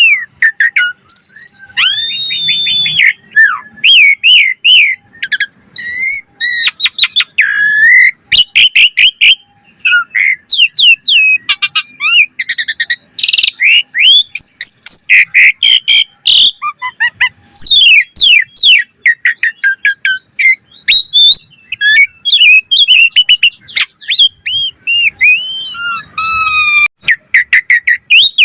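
Jalak suren (pied starling) singing a fast, unbroken, varied song. It mixes gliding whistles, quick chirps and harsh clicking and rasping notes, one phrase tumbling into the next.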